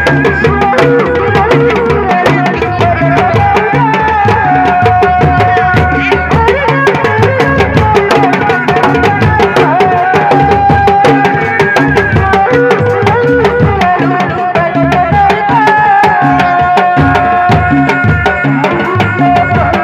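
Sundanese reak ensemble's dogdog drums, struck by hand and with sticks in a fast, interlocking rhythm, with a held melody that steps between a few notes above the drumming.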